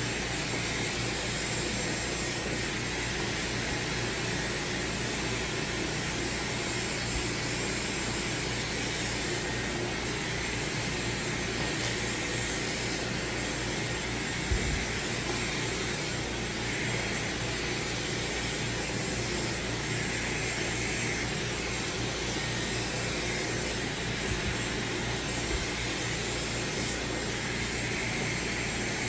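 Dyson hair dryer with a narrow concentrator nozzle running steadily on a strong airflow, blowing through wet hair. There is a small click about halfway through.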